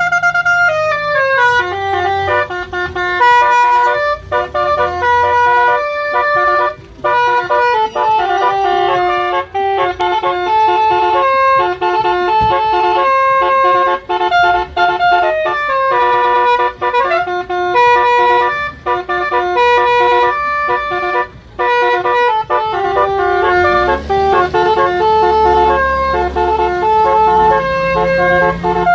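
Basuri telolet musical air horn playing a melody, a string of short held notes in rapid steps with brief breaks. A low rumble comes in underneath near the end.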